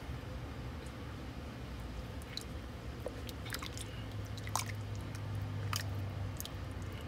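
A spatula stirs a thick, creamy sauce in a pot, making wet squishing sounds and short clicks against the pan. The stirring starts about two seconds in. A steady low hum runs underneath.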